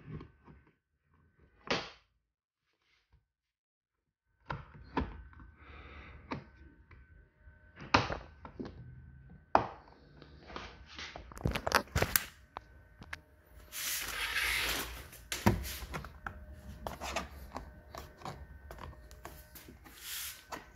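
Plastic interior door trim panel, the triangular mirror cover with its speaker grille, being handled and pressed into its clips: a run of irregular plastic clicks and knocks, with a brief scraping rub about two-thirds of the way through.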